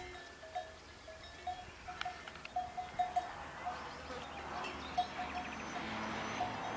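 Bells worn by grazing livestock clinking irregularly at one pitch, many small strikes. A hissing noise builds up in the second half.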